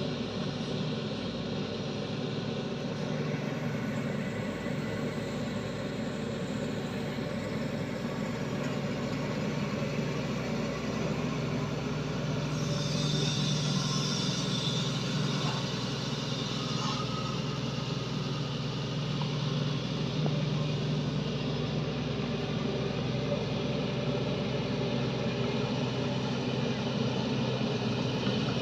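Shantui excavator's diesel engine running steadily at work, a constant low hum, with a brief higher hiss about halfway through.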